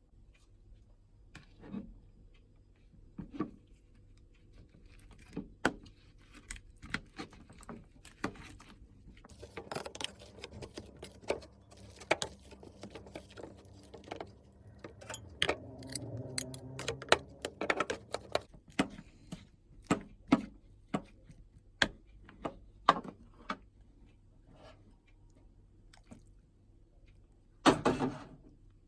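Kitchen food-prep handling sounds: scattered clicks and knocks of utensils and dishes, with a busier stretch of steady noise in the middle and one louder clatter near the end.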